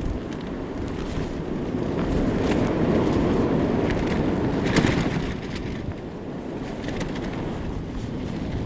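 Strong wind gusting against the microphone, a rumbling rush that builds to a peak about halfway through and then eases off.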